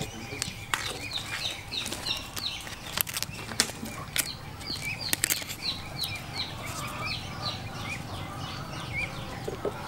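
Banana leaves being cut around the rim of a bowl on a wooden block, giving sharp crisp clicks, while a bird peeps over and over in high, falling notes, two or three a second.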